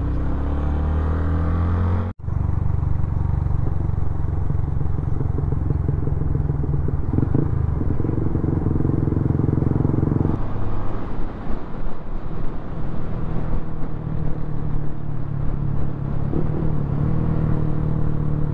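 Motorcycle engine running steadily while riding, with road and wind noise. The sound changes abruptly twice, about two seconds in and about ten seconds in.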